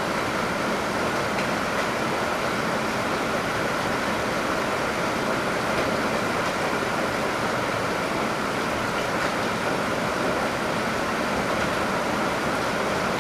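Heavy rain with rainwater pouring out of a downpipe: a steady, unbroken rushing hiss.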